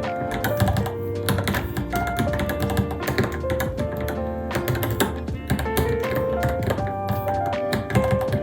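Rapid, irregular keystrokes typed on a Varmilo Minilo mechanical keyboard, a quick run of key clicks several times a second. Background music with a melody plays throughout.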